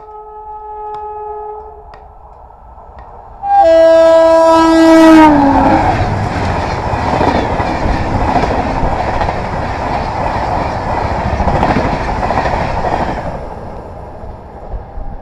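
A WAP7 electric locomotive hauling a Shatabdi express passes at speed, which the railfan reckons is above 130 km/h. Its horn blasts loud about three and a half seconds in and drops in pitch as the engine goes by. The coaches then rush past with clickety-clack on the rails for about eight seconds before the sound fades.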